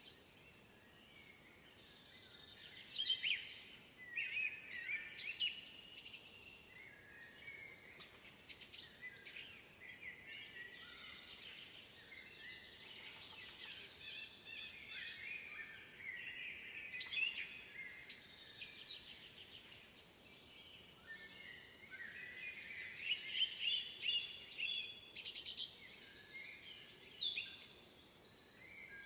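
Several songbirds singing in a spring woodland, overlapping trills and chirps with no pause, busiest about three, six and nine seconds in and again in the last third.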